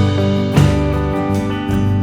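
Instrumental background music led by guitar, held chords with a chord change about half a second in.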